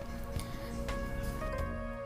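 Instrumental background music with steady held notes, and a few faint light ticks.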